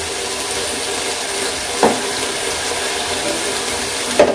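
Cut vegetables cooking uncovered in a pan in their own released water and coconut oil, giving a steady sizzling hiss. A soft knock comes about two seconds in and another near the end, as a hand turns the vegetables.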